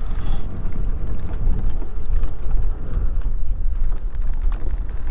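Low, steady rumble from a small boat. A thin, high, steady tone with faint ticks comes in briefly about three seconds in and again from about four seconds on.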